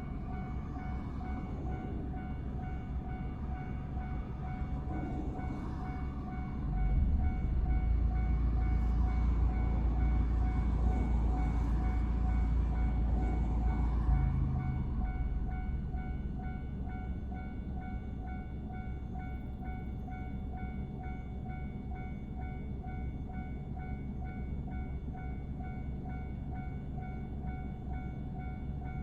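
Railway level-crossing warning bell ringing in a steady, evenly repeating rhythm while a train passes. The train's rumble swells in about seven seconds in and fades after about fifteen seconds.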